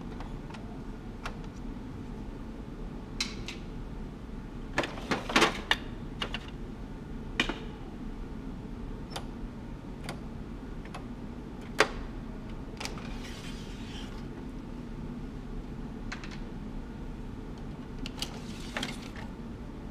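Plastic covers and parts inside a Xerox WorkCentre copier being unlatched and pulled out by hand: scattered sharp clicks and clatters, a cluster about five seconds in and a single loud snap near twelve seconds, over a steady low hum.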